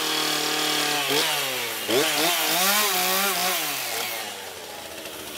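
Two-stroke gas chainsaw cutting into a wooden carving, its engine pitch rising and falling as the throttle is worked. About four seconds in it drops to a quieter, steadier sound.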